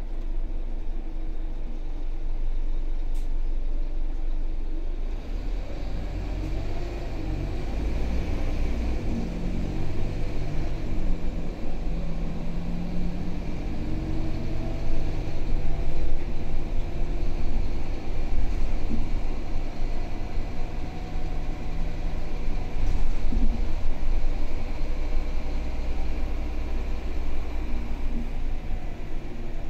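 Scania K320UB bus's rear-mounted five-cylinder diesel running under way, heard from the back seats inside the cabin: a steady engine hum and road noise, with the engine note rising and falling several times as the bus accelerates and changes gear.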